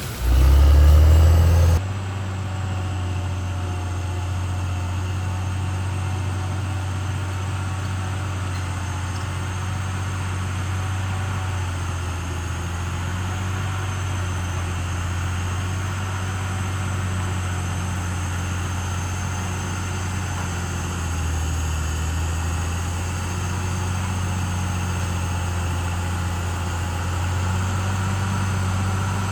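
Caterpillar D6R XL bulldozer's diesel engine running steadily with a low, even hum. It is louder for about the first two seconds, then drops suddenly to a steady level.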